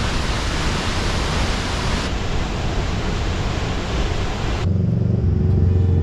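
A waterfall, water rushing in a steady loud roar. About three-quarters of the way through it cuts off suddenly and background music with steady low notes takes over.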